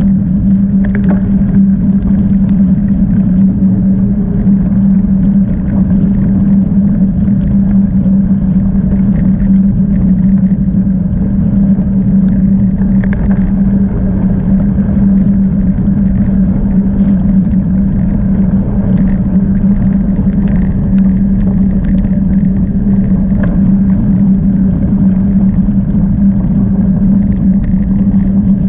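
Bicycle riding noise: steady wind and tyre noise with a constant low hum and scattered small clicks and rattles.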